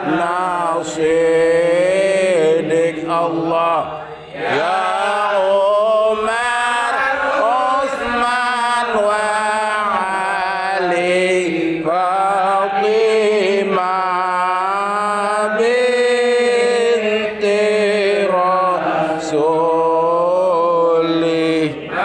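Men's voices chanting an Arabic shalawat in praise of the Prophet Muhammad, in long melodic phrases with a brief pause about four seconds in.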